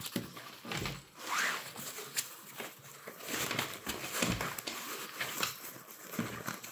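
Nylon vest fabric and mesh-covered foam buoyancy pads rustling and scraping as they are pushed into a fishing vest's pockets, with irregular small knocks and clicks from handling.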